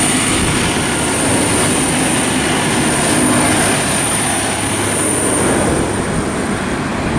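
V/Line N-class passenger carriages running past close by, a steady loud rumble of wheels on rail that eases slightly near the end as the tail of the train moves away.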